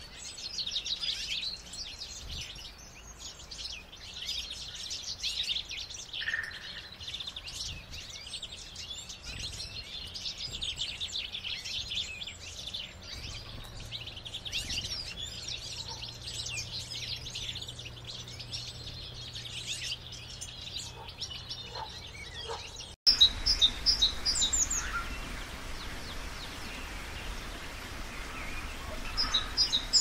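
Common chaffinch singing and calling: a dense run of high chirps and trills. About 23 seconds in it cuts abruptly to a blue tit's song, short high notes repeated in quick, even series.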